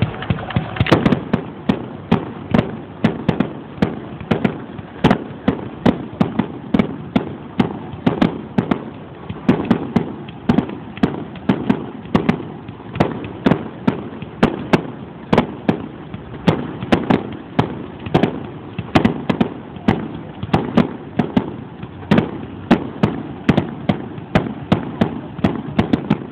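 Fireworks display: a continuous barrage of aerial shell bursts, several loud bangs a second.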